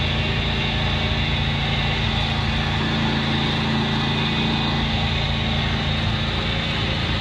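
Ride-on party train running steadily, a constant motor hum with running noise and no change in pace.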